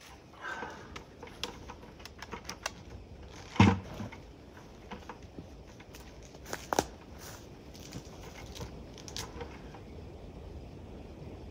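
Scattered light clicks, knocks and rustles of gear being handled and feet moving over leafy ground, with one louder knock about three and a half seconds in and a sharp click just before seven seconds.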